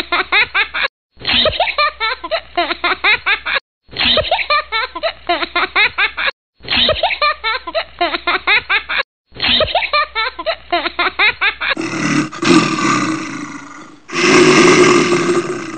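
A young boy laughing in bursts, cut into repeated segments of a few seconds with brief silent gaps between them. Past the middle the laughter gives way to a louder, rough roar-like sound in two bursts.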